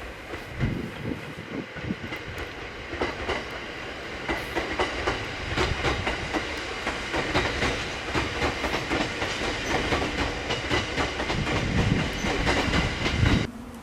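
E231-series electric train running on yard track, its wheels clicking and clattering over rail joints in a dense, irregular run over a low rumble. The sound cuts off abruptly shortly before the end.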